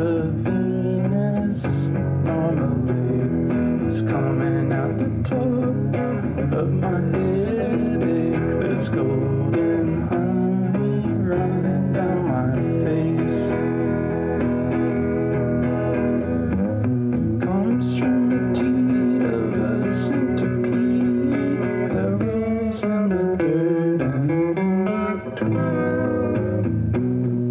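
Live band music with plucked, guitar-like tones over a steady bass. In places the notes slide and bend in pitch, about two-thirds of the way in and again near the end.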